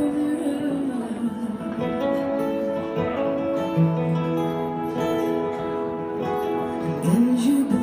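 Acoustic guitar played live, with chords ringing on steadily between sung lines. A wavering voice line comes in near the end.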